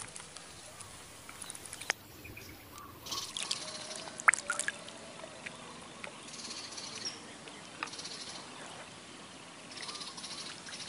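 Quiet water sounds: small trickles and splashes in shallow flood water, with scattered light clicks and drips.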